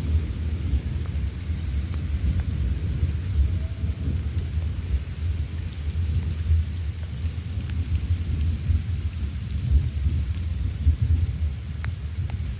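Continuous low rumbling noise that swells and eases, with faint scattered ticks on top.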